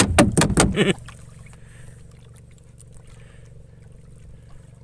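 Small engine running with a steady low hum. In the first second there is a loud, brief burst of noise.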